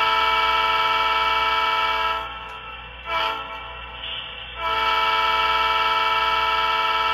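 Multi-tone diesel locomotive horn sounding from the onboard speaker of an HO-scale Atlas EMD SDP35 model with a Quantum sound decoder. A long blast stops about two seconds in and a short toot follows a second later. Another long blast starts near the middle and is still sounding at the end. It is a good horn.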